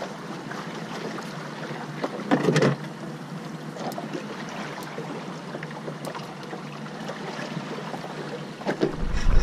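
Steady wash of sea and light wind around a small open fishing boat, with a few faint clicks and a short louder sound about two and a half seconds in.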